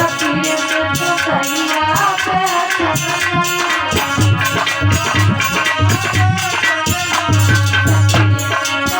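Devotional bhajan music: a melody over a steady, quick percussion beat.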